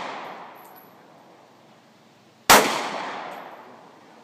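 A single 9mm pistol shot from a Glock 26 fired offhand about two and a half seconds in, its report fading over about a second and a half. At the start the report of the previous shot is still dying away.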